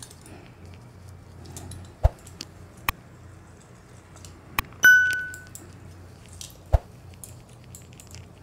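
Metal hand-held lemon squeezer knocking against the rim of a stainless-steel mixer jar: a few sharp clinks, and one clear ringing ding near the middle that fades out over about half a second.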